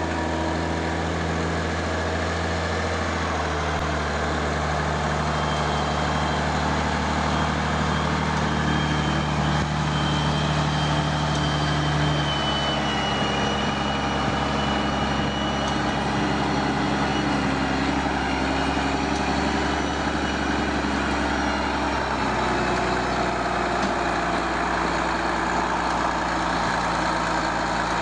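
A heavy vehicle engine running steadily, its note shifting about twelve seconds in and again later.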